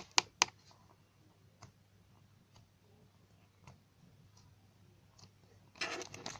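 Small objects being handled: a few sharp clicks right at the start, then faint, scattered taps. Plastic packaging starts to crinkle near the end.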